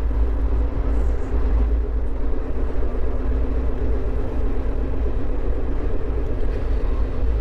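Steady low rumble of an express train running along the track, heard from inside an air-conditioned sleeper coach.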